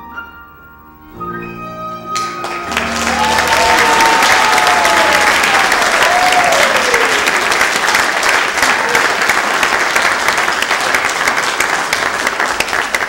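A grand piano with flute and strings plays the closing notes of a piece, and about two seconds in an audience breaks into loud applause with a few cheers, which runs on to the end.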